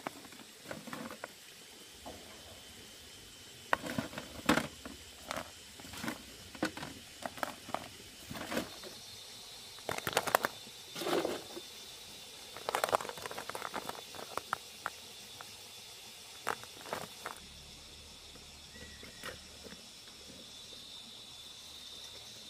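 Freshwater mussel shells clacking against each other and against a woven bamboo basket as they are put in by hand: irregular clicks and knocks, a few louder ones, thinning out a few seconds before the end.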